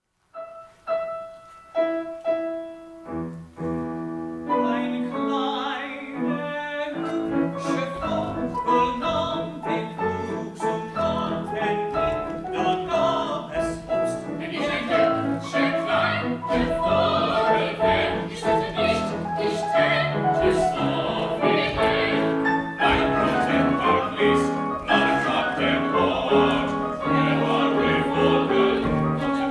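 Operatic song with piano. A few sparse piano notes open it, and about four seconds in the music fills out with singing voices over the accompaniment.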